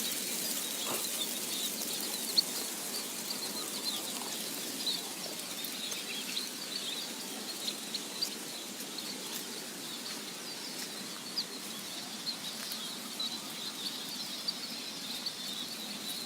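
A flock of sparrows chirping continuously: many short, high chirps overlapping over a steady hiss.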